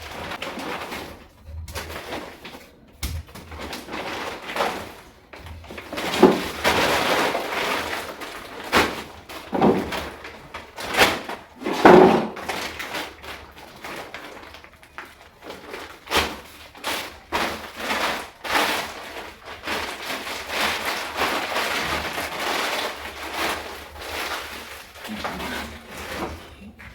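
Plastic bags and packaging rustling and crinkling in irregular bursts as a package of food is unpacked by hand.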